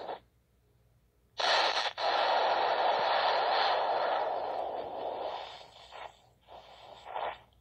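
Cartoon explosion sound effect: a sudden loud rushing blast about a second and a half in, thin and hiss-like rather than deep, dying away over about four seconds, then a couple of short rushing bursts near the end.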